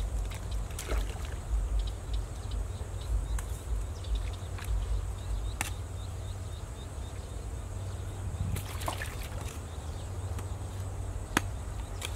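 Small hand shovel scraping and knocking against stones and gravel in shallow canal water, with sharp clicks scattered through, and water sloshing and trickling. A low rumble runs underneath.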